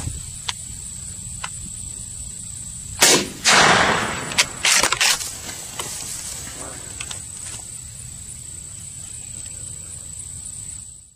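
A Canada goose swooping in low past the microphone and crashing down into tall grass close by. About three seconds in there is a short rush, then a longer whooshing, rustling crash with several sharp snaps over the next second or so. A steady high whine and wind rumble run underneath.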